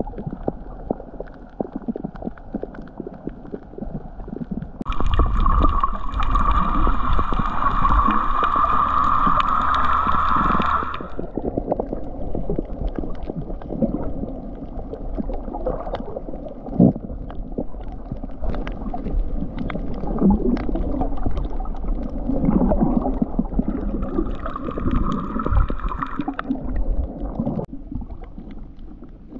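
Underwater sound picked up through a camera housing on a coral reef: a muffled low rumble and gurgle with many small crackling clicks. About five seconds in a steady droning tone with overtones holds for about six seconds, and a shorter one comes near the end.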